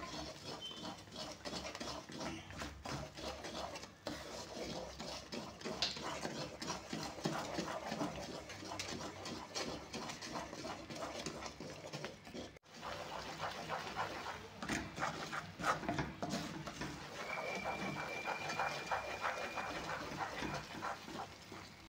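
Wooden spatula stirring and scraping thick, frothing Mysore pak mixture of gram flour, sugar syrup and hot oil around an iron kadai, in a quick, busy, scratchy rhythm.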